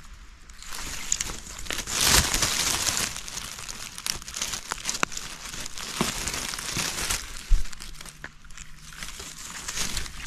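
Dry leaf litter and twigs rustling and crackling as a hand rummages through the forest floor to pick mushrooms, loudest a couple of seconds in, with scattered small snaps and a single low knock of handling close to the microphone about seven and a half seconds in.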